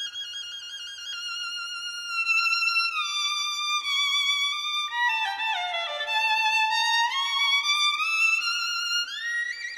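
Instrumental music: a single violin-like melody of long held, wavering notes that slide down in pitch through the middle and glide back up near the end.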